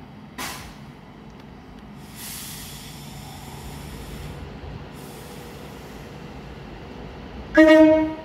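Train at a station platform: air hissing out of its brakes twice, then a short, loud horn blast near the end.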